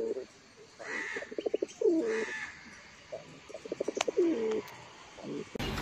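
Mukhi fancy pigeon cooing: two phrases, each a quick run of pulsing notes ending in a longer rolling coo that rises and falls.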